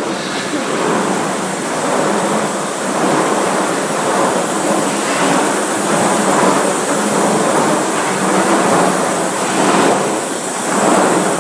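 Core-filled corn puff snack extrusion line running: a steady, loud mechanical din that swells and eases a little.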